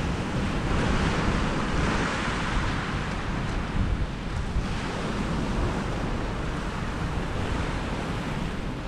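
Sea surf washing against a rocky shore, surging and easing in a couple of swells, with wind rumbling on the microphone.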